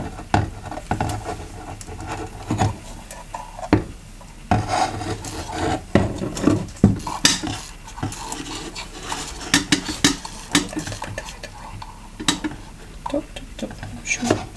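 Long metal tweezers tapping and scraping against glass and poking through loose soil substrate: irregular clicks and scrapes, busiest in the middle.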